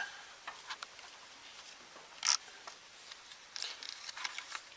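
Faint scattered rustling and small clicks, with one brief louder rustle about two seconds in.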